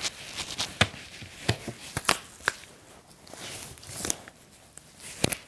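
Rubber swim cap being stretched and pulled on over a head, with hands and suit sleeves moving against it: a string of irregular sharp snaps and short rustles.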